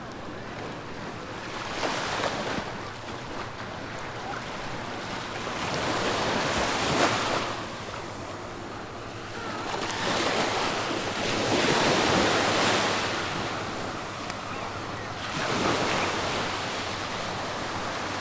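Small waves breaking and washing up the sand, each surge swelling and falling away every few seconds, with some wind buffeting the microphone.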